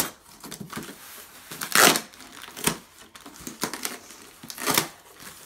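Cardboard box being torn open and crumpled by hand, in a few short ripping crunches, the loudest about two seconds in.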